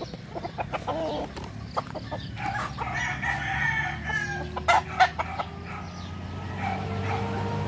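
Gamecocks crowing and chickens clucking; one long, drawn-out crow begins about six seconds in. Two sharp knocks, the loudest sounds, come about five seconds in.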